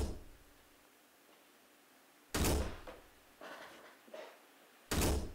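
A ball thrown against an office wall, giving three hard thumps about two and a half seconds apart, with fainter knocks between the last two.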